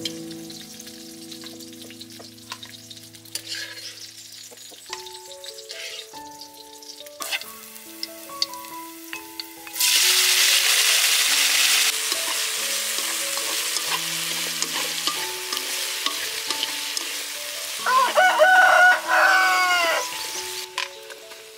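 Pork spare rib pieces tipped into hot oil in a wok: a loud sizzle starts suddenly about halfway through and carries on while they are stirred with chopsticks, after light clicks of the chopsticks on the pan. A rooster crows near the end.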